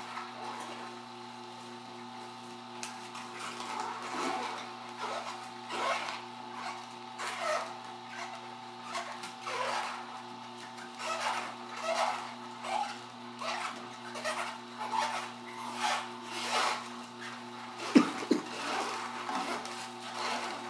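Vertical masticating juicer running with a steady motor hum while its auger crushes vegetables pushed down the feed chute, giving repeated crunching, rasping grinds about every second or so. A single sharp knock comes near the end.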